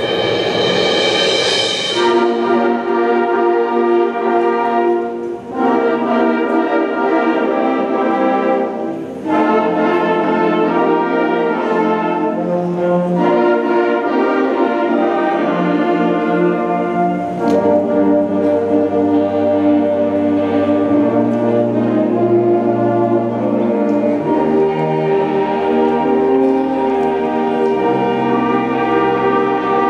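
School concert band of flutes, clarinets, saxophones, trumpets and horns playing a piece in sustained full chords. It breaks off briefly between phrases about five and nine seconds in, and a low bass line joins about halfway through.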